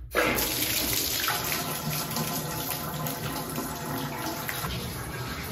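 Water pouring from a tap into a cast iron clawfoot tub and splashing on the bottom near the drain. It starts abruptly and runs steadily.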